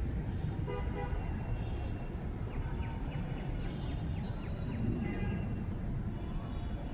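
Steady rumble of road traffic with short vehicle horn toots, one about a second in and a quick high run in the middle.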